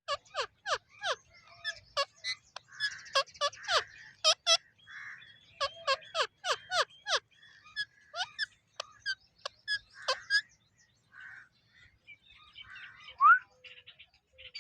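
A pair of Indian ringneck parakeets calling: quick runs of short, sharp squawks that slide down in pitch, then sparser, softer chatter and a loud rising whistle about 13 seconds in.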